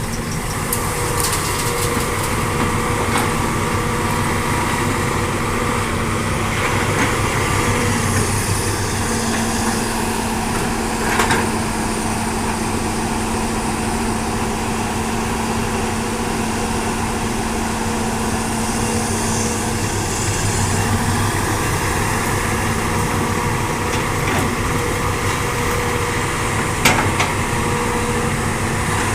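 Diesel engine of a Hitachi hydraulic excavator running steadily under load, with a sharp metallic knock twice, about eleven seconds in and near the end.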